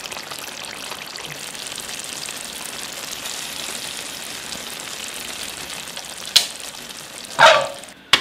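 Thick spinach-and-chicken gravy simmering in a non-stick pan: a steady bubbling sizzle with fine crackles. Near the end come two louder pops, the second longer and the loudest.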